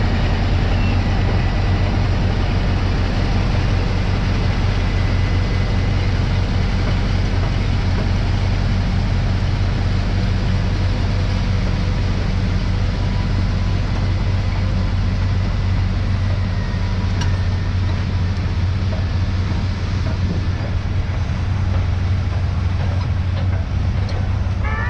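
Heavy diesel engines of Caterpillar bulldozers running steadily, a deep, even drone with no marked revving.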